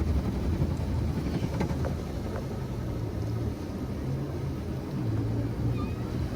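Automatic car wash machine running, heard from inside the car's cabin: a steady low hum over a rushing noise.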